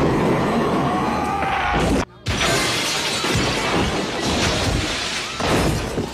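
Film sound effects of a violent crash: dense crashing noise that cuts out for a moment about two seconds in, then glass shattering and scattering as a window is smashed in.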